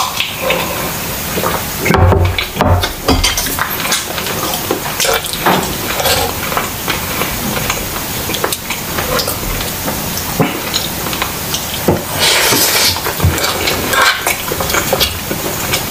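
Close-miked eating sounds: a metal spoon and fork clicking and scraping on ceramic plates as noodles and rice are mixed and scooped, with chewing and mouth noises throughout.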